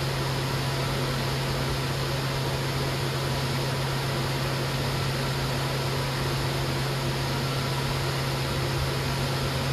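A steady low hum over even hiss, unchanging throughout.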